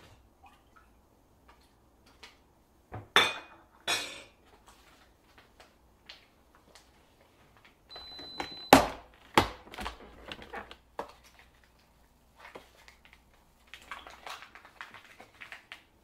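Kitchen dishes and containers being handled, clinking and knocking in scattered bursts. The loudest knocks come about three to four seconds in and again around nine seconds. A short high beep sounds just before the second of these.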